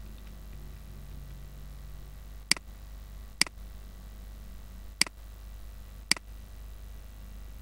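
Four sharp computer mouse clicks at uneven intervals, over a faint steady low hum.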